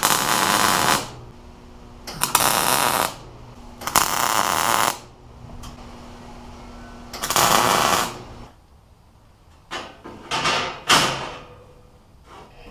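MIG welder tacking an expanded-metal grate to its steel ring frame: a series of crackling welding bursts, each a second or less, with a low steady hum between them.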